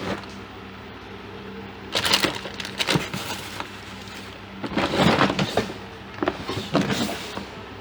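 Three bursts of clattering and scraping, like objects being handled on a workbench, over a steady low hum.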